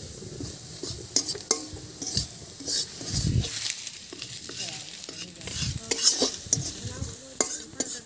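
Metal spatula stirring and scraping small fish and raw mango pieces frying in oil in a metal wok, with steady sizzling and irregular scrapes and clicks of the spatula against the pan.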